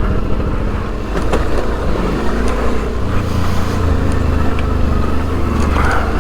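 Suzuki V-Strom 650's V-twin engine running with its Delkevic aftermarket exhaust while the bike rides, its low note getting stronger about three seconds in. Scattered short clicks and rattles from a loosely loaded top box with cameras and tripods bouncing in it.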